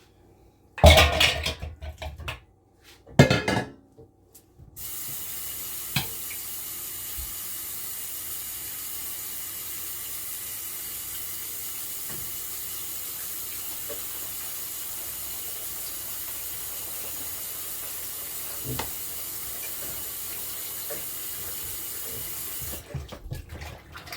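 Two loud clattering knocks, then a kitchen sink tap is turned on about five seconds in. It runs in a steady stream for about eighteen seconds and is shut off near the end, with a few faint knocks while it runs.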